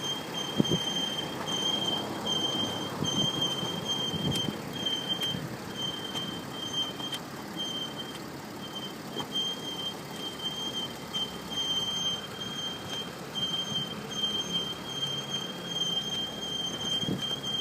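Mercedes-Benz W211 E320 squeaking as the steering is turned: a thin high squeal that comes and goes in short stretches, over a low rumble with a few dull knocks.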